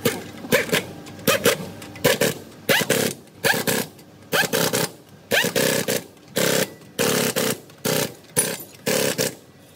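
Pneumatic impact wrench hammering on a truck wheel's lug nuts in about a dozen short, loud bursts, each under half a second, with brief pauses between them.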